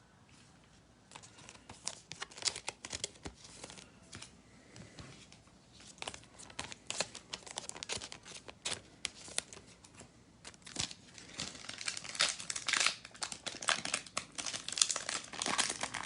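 Foil wrapper of a trading card pack being crinkled and torn by hand, an irregular crackling that starts about a second in and gets busier near the end, as a pack that won't open easily is worked open.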